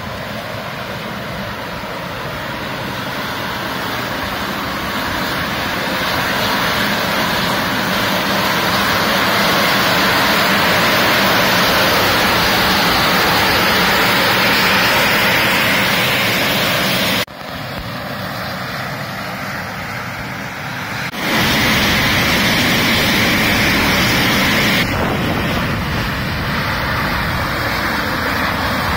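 Fumarole steam vent hissing steadily, a loud even rush of escaping steam. It grows louder over the first half, drops suddenly about two-thirds of the way through, and comes back up a few seconds later.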